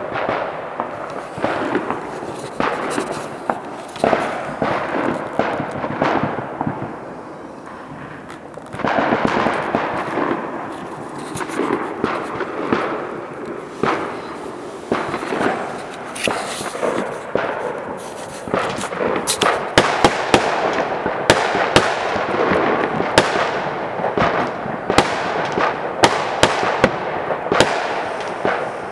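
Fireworks and firecrackers going off, many sharp bangs and pops over a continuous crackle of explosions. The bangs come thicker and louder from about two-thirds of the way through.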